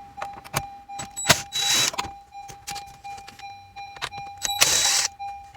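Two short whirring bursts of a small power tool, one about 1.5 seconds in and one near the end, each in turn backing out one of the two Phillips screws that hold a Honda Civic's factory radio. Between them come sharp clicks and taps of handling, over a steady faint high hum.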